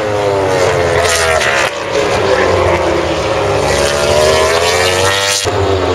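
Four-cylinder MotoGP racing motorcycle engines running at high revs as bikes pass, the pitch sliding down and then climbing back up with the throttle and gear changes. The sound changes abruptly about two seconds in and again near the end.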